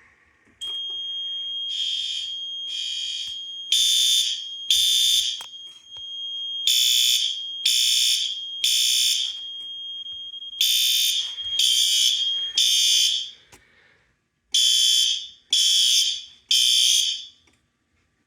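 Fire alarm horns sounding in a temporal-three evacuation pattern: groups of three short blasts, then a pause, repeating. Under them a steady high-pitched tone sounds and stops about three-quarters of the way through.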